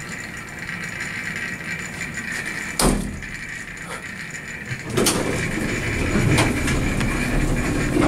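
Hydraulic elevator's hall bell, which rings like a bicycle bell, ringing steadily and fading out about two and a half seconds in. A sharp clack follows about three seconds in, then a heavier knock about five seconds in, with door and cab noise after it.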